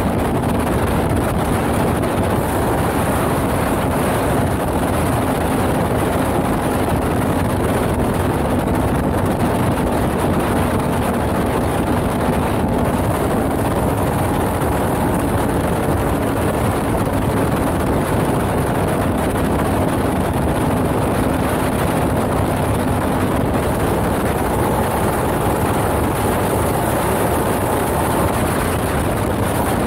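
Can-Am XMR ATV engine running steadily at speed, its note heard from close behind the machine, with wind rushing over the microphone.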